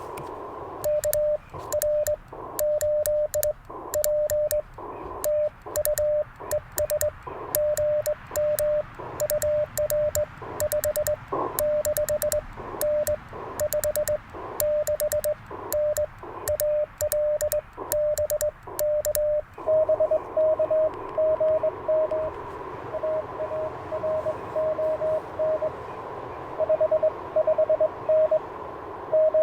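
Morse code sidetone from an Icom IC-705 as CW is sent on an N3ZN paddle key, with sharp clicks from the paddle contacts, for about twenty seconds. Then the receiver's band hiss returns and an answering station's Morse comes through at about the same pitch.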